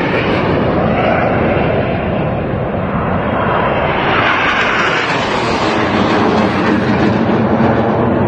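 Jet engine noise from a formation of Frecce Tricolori Aermacchi MB-339 jet trainers flying overhead during an aerobatic display. The noise is loud and steady, and grows sharper for a moment about halfway through.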